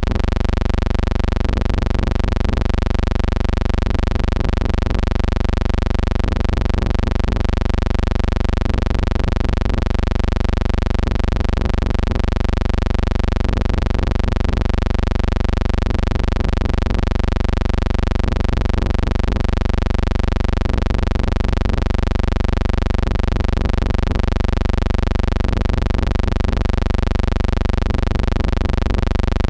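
Steady, unchanging buzzing hum with many overtones, running at an even level throughout with no separate events.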